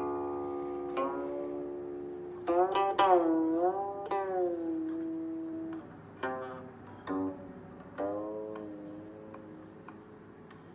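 Guqin, the seven-string Chinese zither, played solo: plucked notes ring on and decay slowly. About three seconds in, one note is slid down and back up in pitch by the left hand, and a few sparser plucks follow before the sound dies away near the end.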